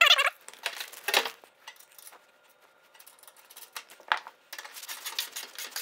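Metal clinking and rattling from the steel legs and caster hardware of an assembly table as casters are fitted: a loud rattling burst at the start, a few clinks, then a longer stretch of scraping and clatter near the end.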